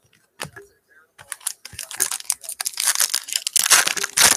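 Foil wrapper of a Panini Prizm basketball card pack being torn open and crinkled by hand: a dense run of rapid crackles from about a second in, loudest near the end.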